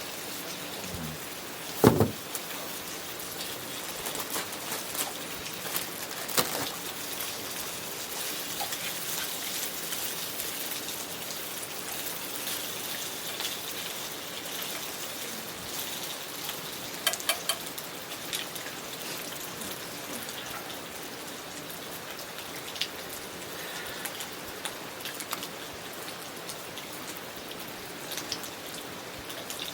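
Steady rain falling, with many small drops ticking; one loud knock about two seconds in.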